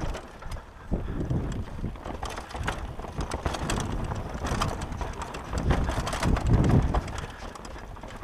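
Downhill mountain bike ridden fast down a rocky dirt trail: tyres crunching over loose stones and the bike rattling with uneven knocks and clatters, with some wind noise on the camera microphone.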